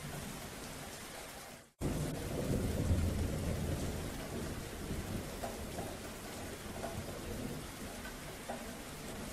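Steady rain with a rumble of thunder. About two seconds in the sound cuts out for a moment, then returns with a low, heavy thunder rumble that slowly fades under the ongoing rain.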